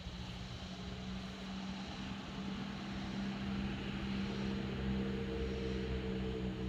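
An engine droning steadily, growing louder from about halfway through.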